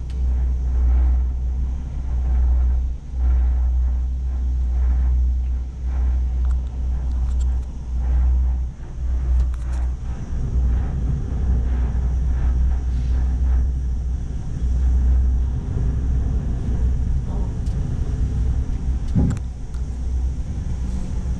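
Low, uneven rumble inside a moving cable-car gondola, swelling and dipping as it rides the cable. A single knock about nineteen seconds in, as the gondola passes over a support tower.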